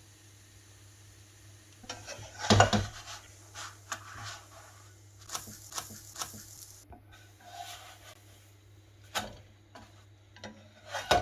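Cooking utensils clinking and scraping against a frying pan, a few scattered knocks with the loudest about two and a half seconds in.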